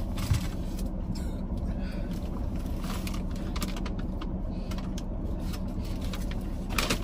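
Steady hum of a parked car's idling engine and air-conditioning fan, with paper food wrappers and napkins crinkling now and then, most loudly near the end.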